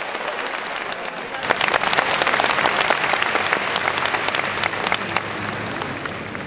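Large audience applauding. The clapping swells about a second and a half in and thins out near the end.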